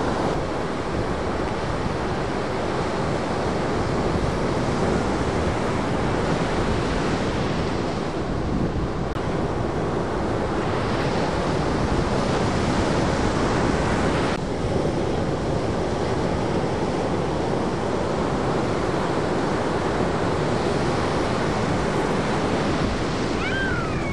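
Ocean surf: shorebreak waves breaking in a steady, continuous rush.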